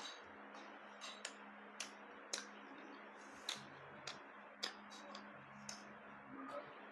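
Eating sounds: sharp, irregular clicks of chewing and mouth noises, about one or two a second, over a faint steady hum.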